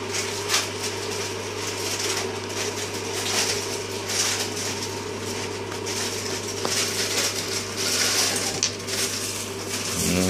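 Close-up handling noise: small silicone containers being scraped inside with a metal dab tool and a lid pressed on, irregular light rubbing and clicks over a steady low hum.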